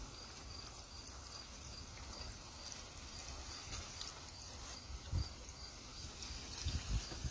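A cricket chirping in a steady rhythm, about two or three short high chirps a second, over a faint steady hiss. A couple of low thumps come in the second half.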